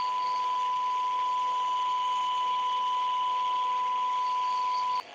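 A steady single-pitched electronic beep tone held without change over a faint hiss, cutting off suddenly near the end.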